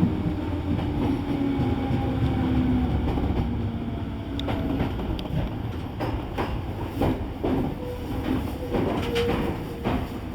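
Nambu Branch Line electric train running, heard from inside the front car: a steady rumble with a faint motor whine that drops slightly in pitch, then, from about halfway through, wheels clacking irregularly over rail joints.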